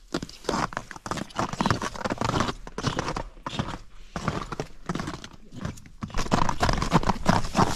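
Footsteps on packed snow and ice, a quick irregular run of crunching steps.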